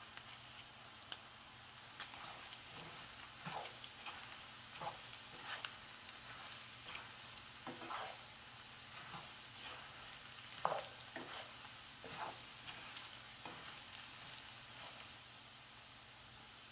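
Pork pieces sizzling in bubbling oil in a nonstick frying pan, stirred with a spatula that scrapes and knocks against the pan every second or so, loudest about two-thirds of the way through.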